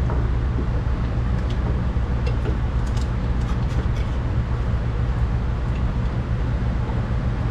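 A steady low mechanical hum, with a few faint light metallic clicks as the new strut's top bolts are worked toward the mount.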